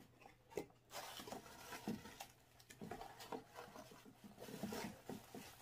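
Faint rustling and small taps of a small white cardboard box being opened by hand, its lid and flaps handled.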